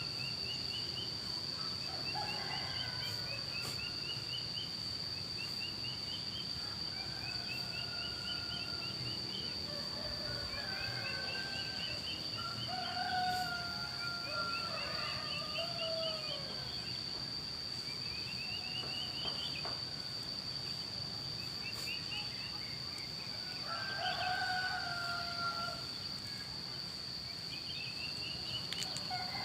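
Roosters crowing several times, answering one another, loudest about halfway through and again near the end. Between the crows a songbird repeats a short rising trill every couple of seconds, over a steady high whine.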